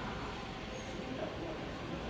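Railway station platform ambience: a steady low rumble with faint, indistinct voices in the background.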